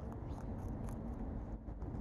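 Rabbit chewing leafy greens close by, a scatter of small crisp crunches at irregular intervals, over a low steady rumble.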